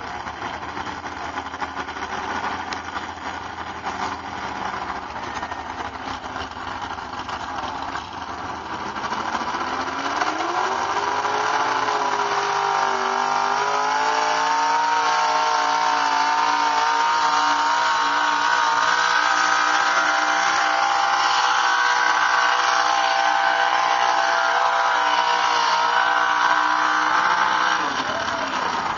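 Pulling truck's engine running at lower revs, then climbing in pitch about ten seconds in and held at high revs under load during a pull, before dropping off sharply near the end.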